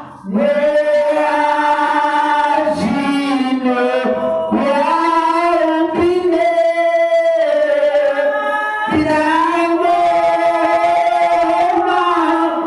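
Worship singing: a voice holds long, drawn-out notes that slide between pitches, in a few phrases with short breaths between them.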